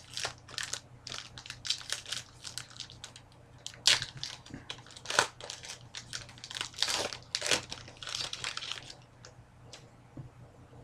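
A trading card pack's wrapper being torn open and crinkled in the hands: a dense string of sharp crackles that dies down about nine seconds in.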